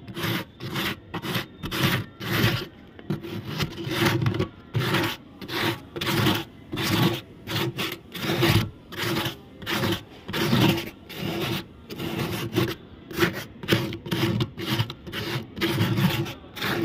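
Sandpaper rubbed back and forth over a plastic water tank along a crack, about two scratchy strokes a second. The sanding roughens the smooth plastic so the adhesive can grip the joint.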